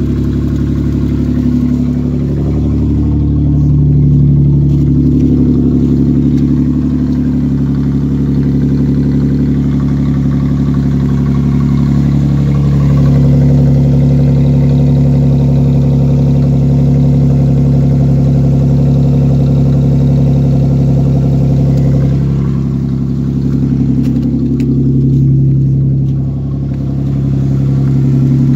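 Isuzu V6 engine idling with its exhaust cut off just behind the manifolds, so it runs with no muffler or pipes. Its speed dips and rises slightly a few seconds in and again near the end.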